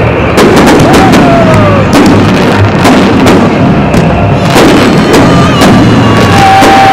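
Fireworks salute with shells bursting overhead in a rapid, dense string of loud bangs, with a few short whistling tones among them.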